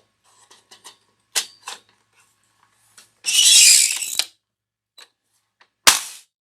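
Frankford Arsenal Pile Driver bullet puller being worked on a 7.62x39 cartridge. Light metallic clicks as the round is set, a one-second rasping slide a little after three seconds in, then a single sharp, heavy knock near the end as the puller strikes to break the bullet free of the case neck.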